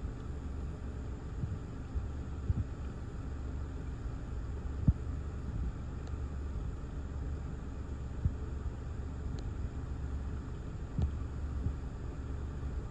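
Gusty thunderstorm outflow wind buffeting the car and the microphone: a steady low rumble with a few sudden thumps, the loudest about five seconds in.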